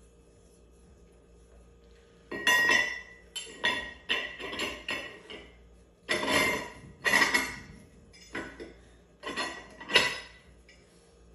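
Steel bearing of a Rock Hog down-the-hole hammer being worked down inside the hammer's steel casing: repeated metallic clinks and scrapes that ring on, in clusters starting about two seconds in, the loudest near the end.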